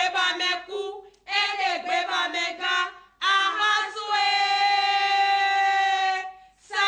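Singing: a chanted melody in short phrases, ending in a long held note from about four seconds in to just past six seconds.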